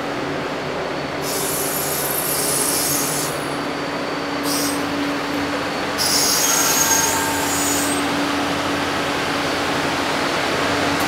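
Passenger train cars rolling slowly past with a steady rumble of steel wheels on rail. High-pitched wheel squeal comes in twice, about a second in and again around six seconds in, each for about two seconds. A steady hum from the diesel locomotive grows stronger near the end as it draws near.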